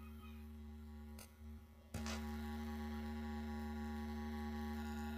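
Steady electrical mains hum from the recording chain, with no speech. A faint click comes about a second in, and a sharper click just before two seconds, after which the hum is louder.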